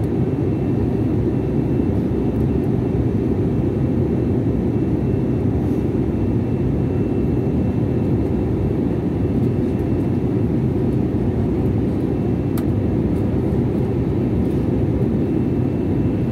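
Steady cabin noise of a jet airliner in flight, heard at a window seat beside the underwing turbofan engine: a deep, even rush of engine and airflow with a faint steady high whine.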